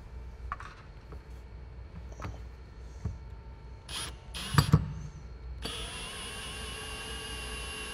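A few light clicks and a short cluster of knocks from handling tools, then, about two thirds of the way in, a power drill starts abruptly and runs with a steady whine, driving a screw into a sealant-filled hole in the door sill.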